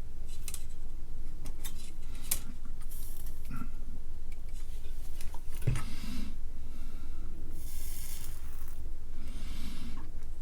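Small handling noises on a workbench as components are fitted to a circuit board: scattered light clicks and short rustling, hissy scrapes over a steady low hum.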